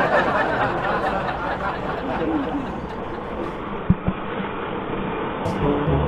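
Steady wind and running noise of a Yamaha SZ motorcycle on the move, with two short thumps about four seconds in.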